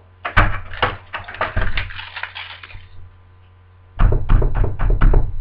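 Lever mortice deadlock (a 1980 BS 3621 lock in a door) being locked with its key: a run of clicks and rattles as the key goes in and turns. A second flurry of clicks comes about four seconds in.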